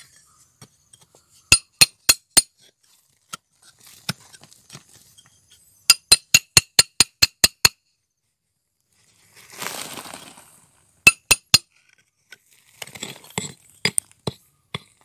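Flat steel bar striking rock, giving sharp ringing clinks in quick runs: four, then about eight at roughly five a second, then three. A brief scraping rush comes between the runs, and scattered scraping and clinks come near the end.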